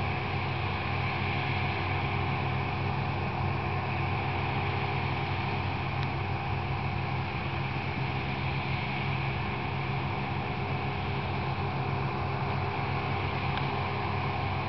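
Two self-propelled bean viners harvesting, their diesel engines and threshing machinery running with a steady, even drone.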